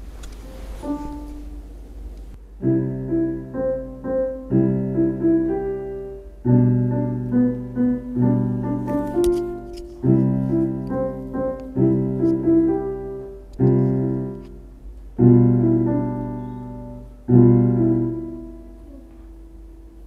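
Electronic keyboard on a piano sound, played as a slow tune of struck chords with a melody over them, in short phrases. The last chord is left to ring and fades out near the end.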